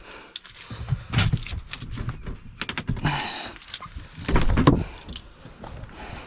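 A car door being opened and shut, with several clunks and knocks spread over a few seconds and some rustling.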